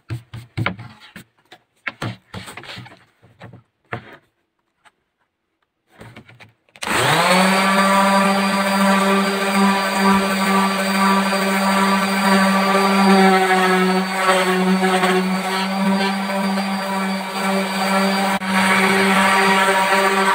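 A few short brushing strokes of a bristle hand brush sweeping sawdust off a wooden board, then an electric random orbital sander switches on about seven seconds in, spins up quickly and runs at a steady pitch while sanding the wooden cutting board.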